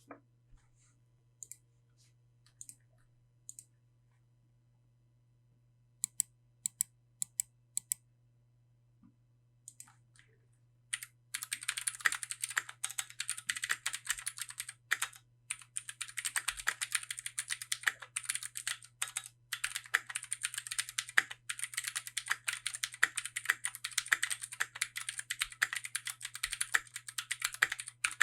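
Keychron Q1 gasket-mount mechanical keyboard with factory-lubed Gateron Phantom Blue switches and factory-lubed stabilizers. It starts with a few scattered single key presses, then goes into fast, continuous typing for the last two-thirds, with only short pauses.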